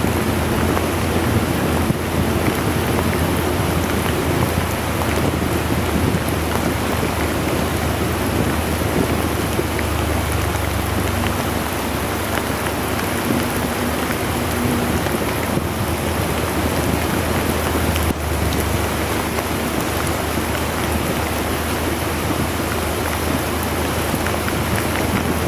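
Very heavy rain pouring steadily, heard from a motorcycle riding through it, with a constant low rumble underneath.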